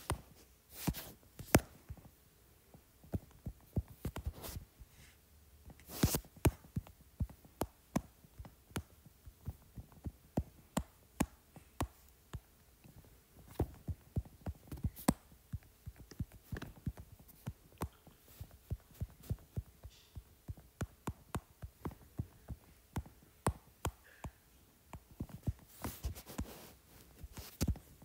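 Irregular taps and clicks of a stylus on a tablet's glass screen while painting, often several a second with short pauses between runs.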